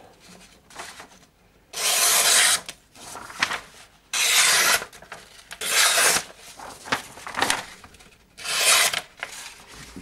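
Sheet of paper being sliced by the Niolox-steel blade of a Lionsteel M3 UL knife: about half a dozen separate hissing cuts with short pauses between them. It is a paper-slicing sharpness test of the factory edge, which is called laser sharp.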